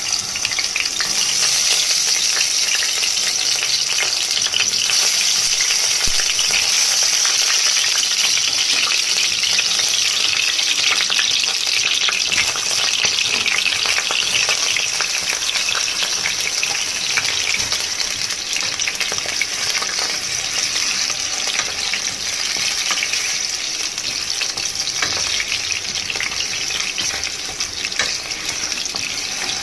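Potatoes sizzling steadily as they fry in hot mustard oil in a pan, with a few light knocks here and there.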